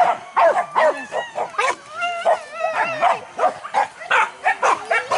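Several hunting dogs barking and yelping in quick, overlapping bursts, with one drawn-out wavering howl about two seconds in: a pack giving tongue during a wild boar hunt.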